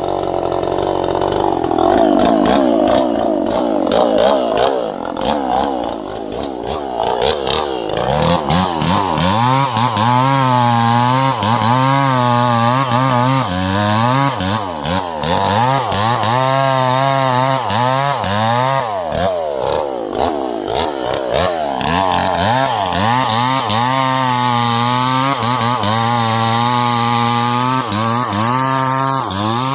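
Two-stroke chainsaw running under load while cutting small sengon trees, its engine speed rising and falling repeatedly as the chain bites and frees. The first part is rougher, with crackling clicks over the engine.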